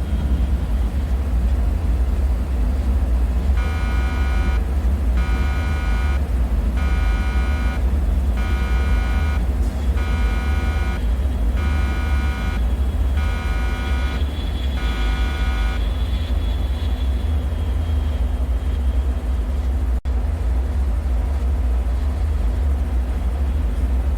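A deep, steady low rumble like heavy ventilation machinery in a bunker. Over it, a multi-tone electronic alarm beeps eight times, about once every one and a half seconds, starting about four seconds in and stopping about sixteen seconds in.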